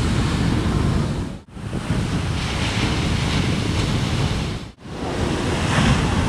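Ocean waves breaking and washing, with wind buffeting the microphone. The sound cuts out briefly twice, about a second and a half in and again just under five seconds in.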